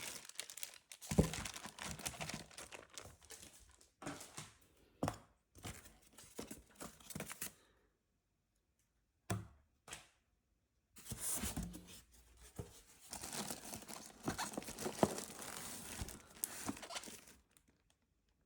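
Packaging being torn open and crinkled by hand during an unboxing: rustling and ripping in two long stretches, with a pause of a few seconds between them broken by two sharp clicks.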